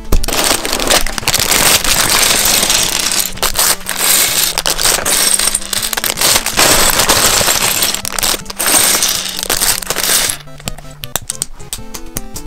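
Plastic parts bags of LEGO bricks crinkling and loose bricks clattering onto a wooden table as the set is unpacked, over background music. The handling noise stops about ten seconds in and the music carries on alone.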